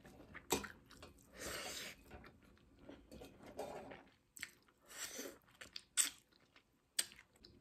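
A person chewing and biting a mouthful of rice and pork ribs close to the microphone, with a few sharp clicks scattered through.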